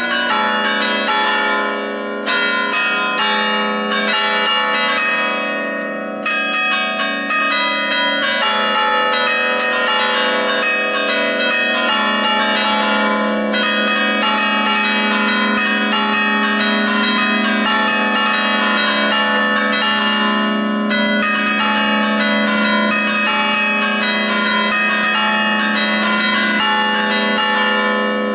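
Allegrezza on a church's ring of five bells, not tuned to a scale, with the heaviest in E3: the bells are struck in quick, repeated festive patterns, their tones ringing over one another. The strikes come in short groups at first and become a dense, continuous peal from about seven seconds in.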